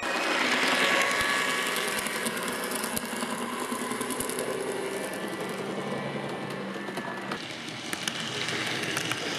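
N-scale model trains running on the layout: a steady whirr of small electric motors and wheels on the track, with scattered light clicks.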